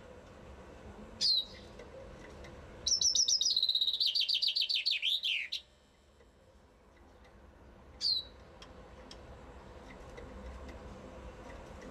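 Common chaffinch singing one full song of about three seconds: a rapid trill that drops in steps and ends in a downward flourish. A single short, sharp falling call comes before the song and another one after it.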